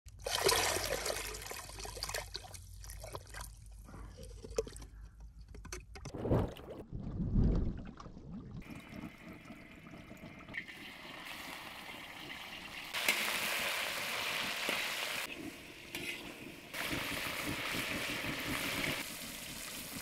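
Water splashing and trickling as hands work a rusty pipe set in a shallow pool of spring water, with small knocks against the rocks. About halfway through it gives way to a steady hiss that swells twice.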